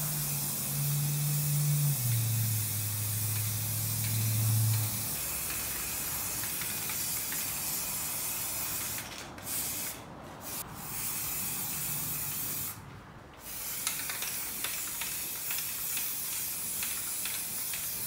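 Aerosol spray-paint can hissing in long sprays as white paint goes onto metal lockers, cut off briefly about nine, ten and thirteen seconds in when the nozzle is released. A low hum that drops in pitch sits under the first five seconds.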